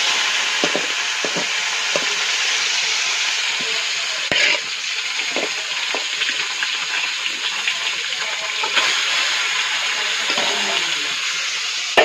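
Whole fish sizzling in hot oil in a kadai, a loud, steady frying hiss that begins as the fish goes into the oil. A couple of short knocks are heard over it.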